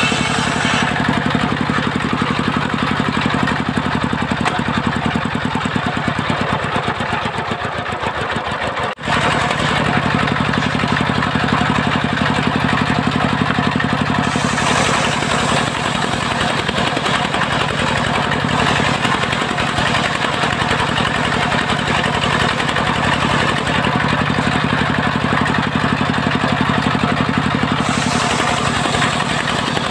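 Circular sawmill blade ripping waru (sea hibiscus) timber, driven by an engine that runs steadily underneath. The sawing noise swells as boards go through the blade, about halfway in and again near the end, with a brief sudden break about nine seconds in.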